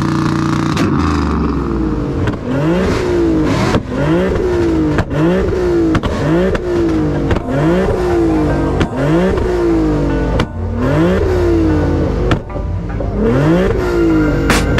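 A lowered sedan's engine revved again and again through its exhaust, about one quick rev every second and a quarter. Each rev rises and falls in pitch, with a sharp crack between revs.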